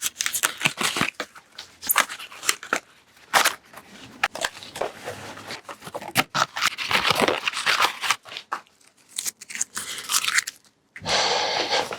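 Packaging being crinkled, crunched and torn off by hand, irregular rustling with many sharp clicks and snaps.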